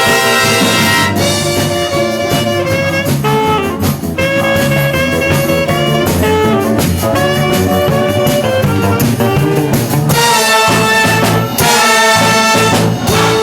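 A live wind band playing dance music, with brass carrying the tune over a steady beat.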